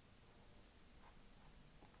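Near silence: room tone, with a single faint computer-mouse click near the end.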